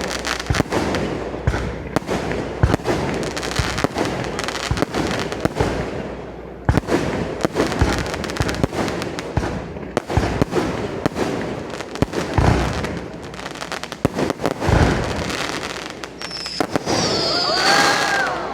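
Fireworks display: a dense run of sharp crackling and popping reports, with two heavier booms about twelve and fifteen seconds in.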